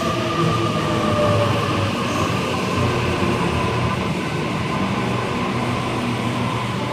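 Electric passenger train running through an underground station: steady rumble and hiss with a motor whine that falls slightly in pitch.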